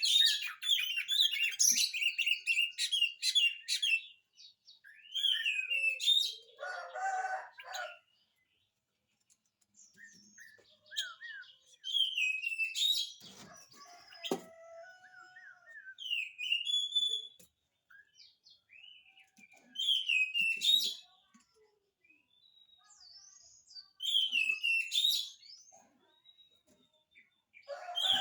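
Oriental magpie-robin singing vigorously: varied high whistles and chirps in phrases of one to four seconds, a few seconds apart, some phrases with harsher, lower notes.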